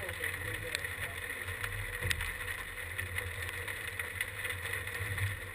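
A small motor humming steadily, with a low rumble and a faint whine, and a few light knocks.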